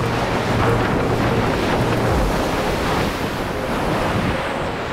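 Ocean surf breaking and washing up the beach, a steady rushing wash, with wind buffeting the microphone in a low rumble for the first two seconds or so.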